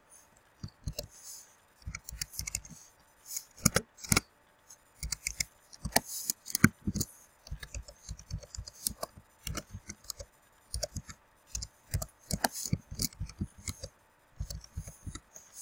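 Typing on a computer keyboard: an irregular run of quick key clicks, several a second, with a few short pauses.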